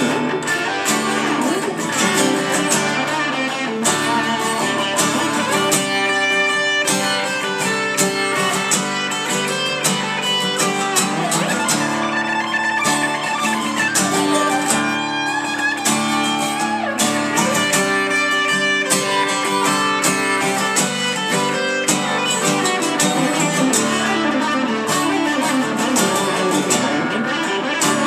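Instrumental music led by guitar, with plucked and strummed notes at a steady pace and no singing.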